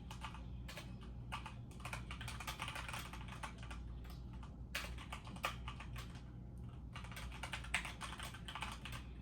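Typing on a computer keyboard: irregular runs of key clicks with short pauses, over a low steady hum.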